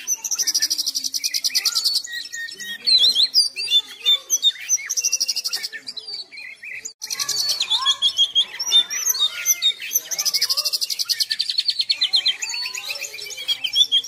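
Oriental magpie-robin (kacer) singing continuously: a varied song of whistles and chirps broken by several fast rattling trills, with a brief lull about halfway through.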